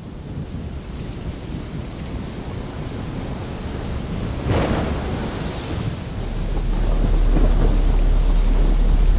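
Sound-effect thunderstorm: a steady wash of rain and rumble, growing louder, with a thunder crack about halfway through. About two-thirds in, a deep steady bass drone comes in under it.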